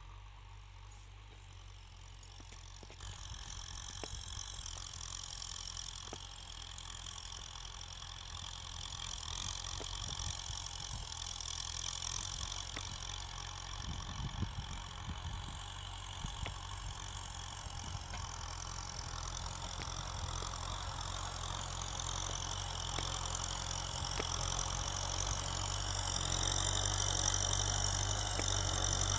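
Kubota tractor's diesel engine running steadily under ploughing load, growing louder as the tractor comes closer.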